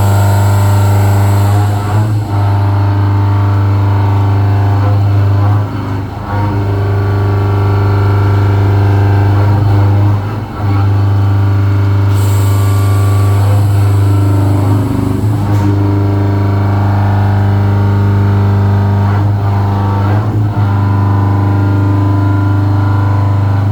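CNC milling machine running with a loud, steady low hum, dipping briefly every few seconds, with a hissing noise near the start and again about halfway.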